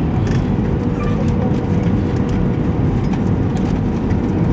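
Airbus A320 jet engines and airframe on approach: a steady low rumble at an even level, with a steady hum running through it.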